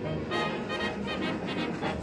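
Music with brass instruments, a run of changing notes.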